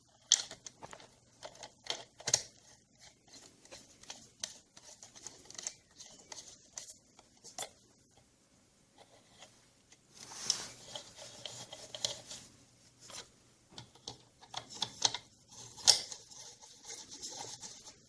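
Hands working on a Rancilio Rocky doser grinder's parts: scattered clicks, knocks and scraping, with two longer stretches of rustling about ten seconds in and near the end. The grinder motor is not running.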